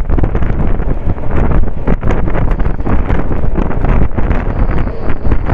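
Strong wind buffeting a microphone held outside a moving passenger train, over the running noise of the train.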